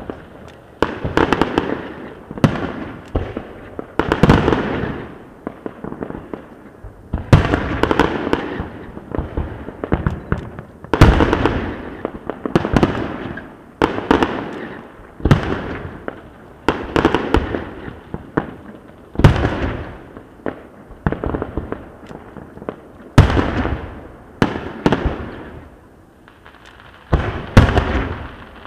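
Aerial fireworks shells bursting in quick succession: a string of sharp bangs, some in rapid clusters of crackles, each one trailing off into a rumble.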